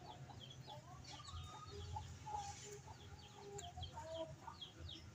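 Faint bird calls: chickens clucking, with small birds chirping in quick, repeated falling notes.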